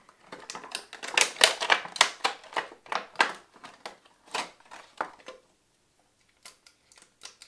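Plastic and foil gift packaging crinkling and crackling as it is handled and pulled open by hand: a dense run of sharp crackles for about five seconds, then a few faint clicks near the end.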